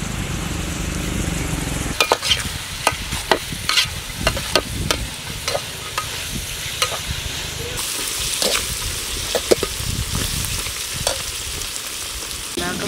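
Chopped onions and green chillies sizzling in a large aluminium pot, with a perforated metal ladle scraping and clicking against the pot as they are stirred; the stirring starts about two seconds in, after a low steady rumble, and the sizzle grows louder from about eight seconds.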